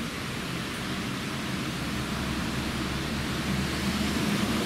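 Steady hiss of rain falling on wet pavement, with a low hum underneath that grows a little louder near the end.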